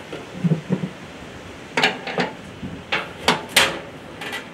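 Metal clinks and clicks of an 11/16 open-end wrench on a brass inert-gas hose fitting as it is tightened onto a TIG welder's gas connection. There are a couple of dull knocks about half a second in, then a run of sharper clinks.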